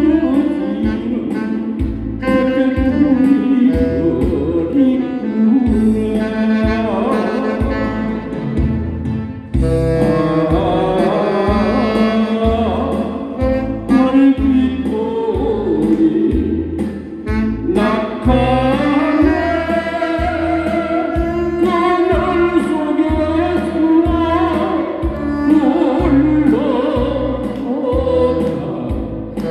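A man singing into a microphone over an amplified backing track with a steady beat, accompanied by a live saxophone.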